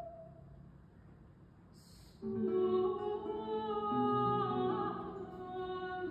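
Baroque aria for mezzo-soprano and archlute: a held sung note fades into a short hush, then, after a brief breathy hiss, the voice comes back in with long held notes over plucked archlute chords.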